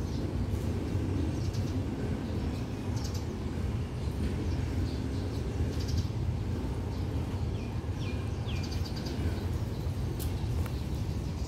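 Birds chirping in short high calls over a steady low outdoor rumble.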